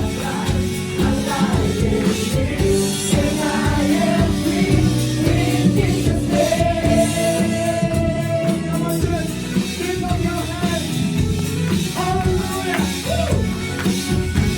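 Live contemporary worship band music with singing, playing steadily throughout.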